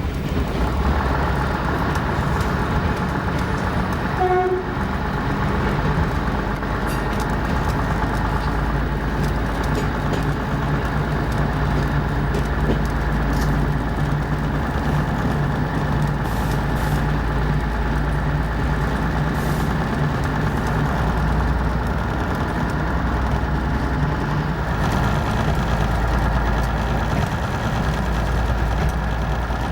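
Preserved diesel locomotive running, its engine giving a steady low throb with a brief tone about four seconds in.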